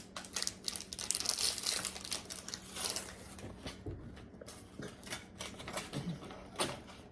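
Plastic snack wrapper crinkling as a packet is handled and torn open. The crackling is dense for the first three seconds, then thins to scattered crackles.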